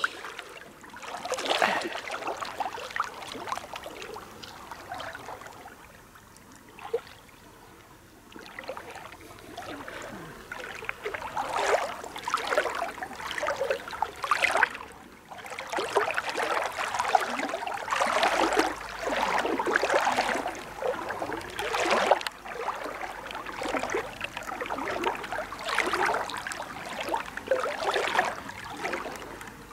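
Shallow sea water swishing and splashing around the legs of a person wading forward, in uneven swells every second or two, quieter for a few seconds about a third of the way in.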